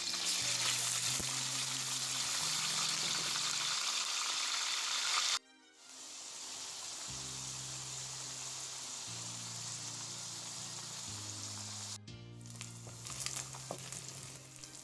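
Pieces of boiled turkey frying in hot cooking oil: a steady sizzle, cut off briefly twice and quieter after the first break, over soft background music.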